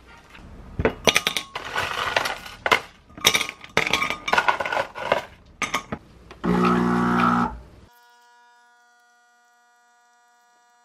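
Ice cubes clinking against a glass mug in a run of sharp clicks, then an illy Iperespresso capsule coffee machine's pump humming loudly for about a second as it starts to brew.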